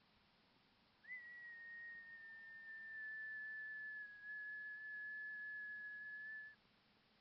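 A single pure, high whistle-like tone starting about a second in, held for about five and a half seconds while sinking very slightly in pitch, then stopping abruptly.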